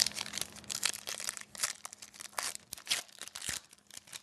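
Plastic wrapper of a hockey card pack being torn open and crinkled, a quick run of irregular crackles that stops near the end.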